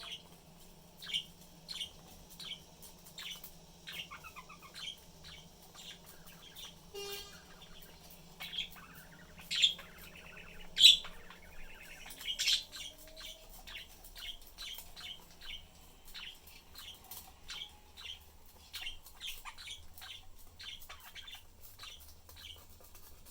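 Pet budgerigars chirping: a steady stream of short, high chirps a few times a second, with a few louder calls near the middle.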